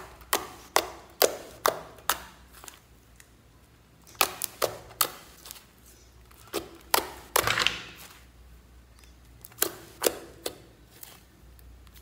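Glitter slime being poked, pressed and folded by fingers, giving irregular runs of sharp clicks and pops, with a longer crackling squelch about seven and a half seconds in.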